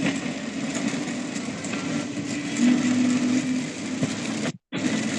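Steady vehicle engine hum with a low drone. The sound cuts out for a moment about four and a half seconds in.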